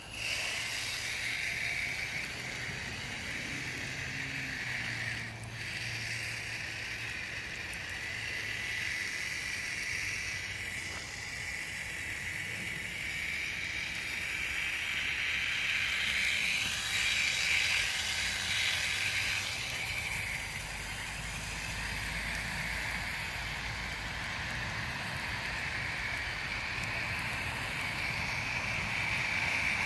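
4x4 RC car's motor and drivetrain whining steadily as it drives through snow, the pitch shifting up and down a few times with the throttle.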